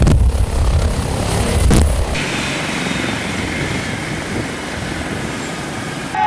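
Helicopter rotor and turbine noise, heavy and low for about two seconds, then cutting abruptly to a thinner, hissing sound with a faint steady whine.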